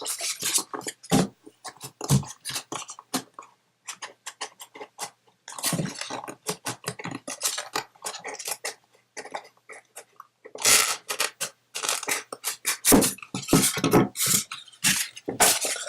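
Product packaging being handled and pulled apart to free a microphone from its box: irregular crackling, rustling and scraping, heavier from about eleven seconds in.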